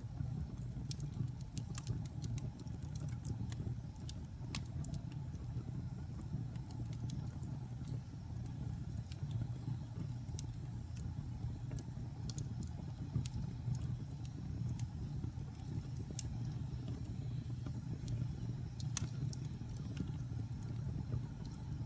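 Wood fire burning in a fireplace: a steady low rumble of flames with scattered sharp crackles and pops at irregular intervals, one louder pop near the end.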